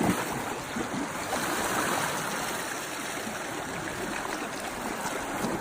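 Sea water washing and splashing among rocks: a steady churning rush with small splashes, swelling a little about two seconds in.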